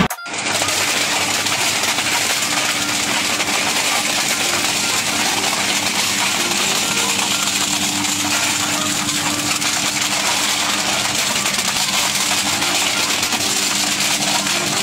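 Twin-shaft industrial shredder running steadily, its cutters taking in sheet panels: an even mechanical din with a faint low hum under it.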